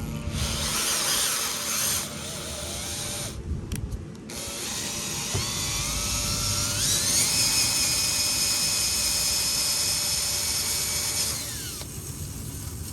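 Electric drill under heavy load, working the differential bolt hole in a BMW E36 rear subframe for a 14mm diff bolt upgrade, hot enough that the drill is smoking. It runs, stops briefly about three and a half seconds in, restarts, its whine climbs in pitch and holds steady, then it stops near the end.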